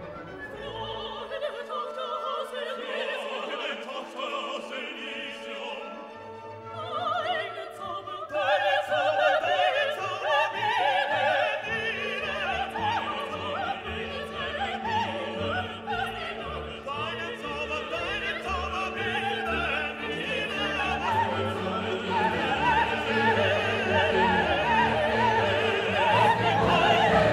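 Background music: a classical orchestral piece with operatic singing, gradually growing louder.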